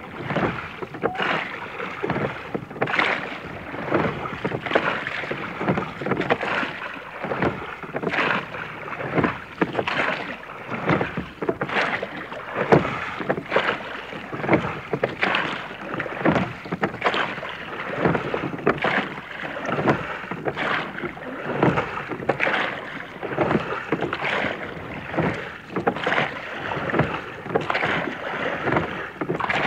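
Sea Scouts whaler rowed fairly fast with three pairs of oars: a steady rhythm of oar strokes, roughly one a second, with the oars knocking and splashing at each stroke over continuous water noise.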